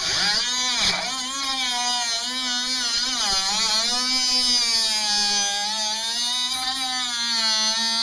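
Cutoff wheel cutting through a rusted steel truck wheel well. Its high whine sags in pitch each time the wheel bites into the metal and then recovers, with the deepest dips about a second in and around three seconds in.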